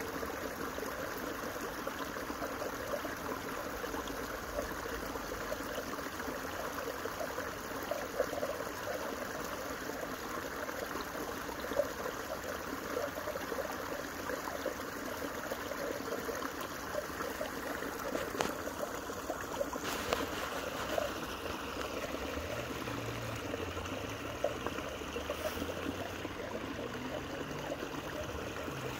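Water running and trickling steadily, the sound of a leak through a beaver dam that the beaver is working to plug.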